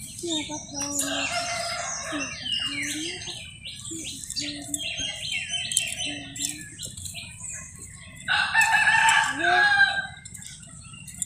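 Domestic chickens clucking, with a rooster crowing loudly once about eight seconds in, and small birds chirping.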